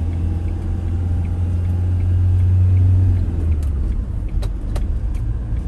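Engine and road noise of a Ford passenger van heard from inside the cabin while driving: a low drone that swells for about three seconds, then drops off, with a few light clicks near the end.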